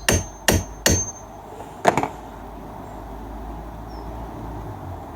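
A socket being tapped down over a battery terminal clamp to seat it fully on the tapered battery post: three quick metallic taps, each with a short ring, then a louder double knock about two seconds in.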